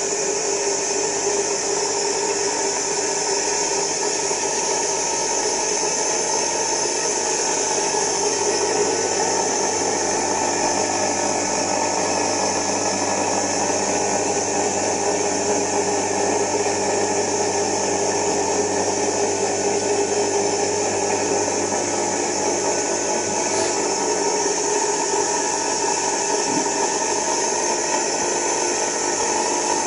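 Electric motor running at a steady speed: a constant hum with a high whine that does not change.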